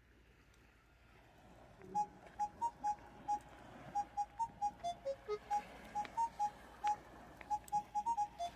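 Background music: a light, bouncy melody of short, bright notes starts about two seconds in, over a faint low hum.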